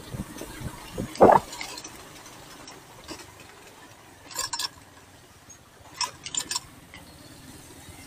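Wind buffeting the microphone of a camera carried on a moving motorcycle, with a loud thump about a second in. After that, a quieter steady rumble broken by two short clusters of clicking and rattling, about four and six seconds in.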